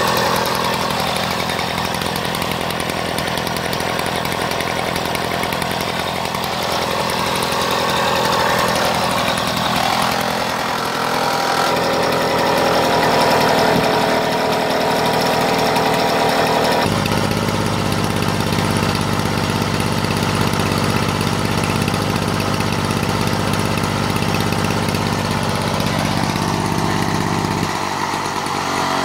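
Classic Victa two-stroke lawn mower engine running steadily. Its note changes abruptly about ten seconds in and again about seventeen seconds in.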